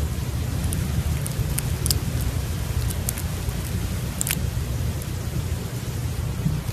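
Low, steady rumbling noise under a faint hiss, with a few short clicks scattered through the first four seconds or so.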